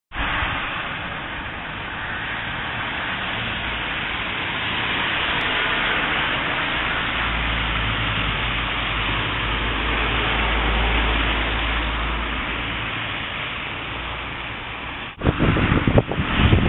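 Steady hiss of city street traffic, with a low rumble swelling in the middle as a vehicle passes. About fifteen seconds in it changes abruptly to rough, uneven buffeting.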